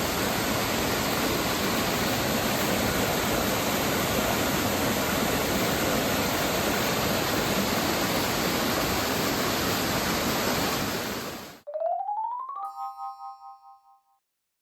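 Steady rush of a waterfall, cutting off suddenly about eleven and a half seconds in. A short rising tone follows, then a ringing chime that fades away.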